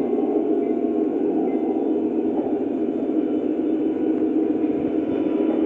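Lionel O-gauge Amtrak F40PH model train running steadily around the layout's track, a continuous even rumble of wheels and motors.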